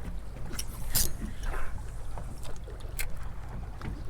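Water lapping against the hull of a small fishing boat over a steady low hum, with a few sharp clicks and knocks, the clearest about a second in and at about three seconds.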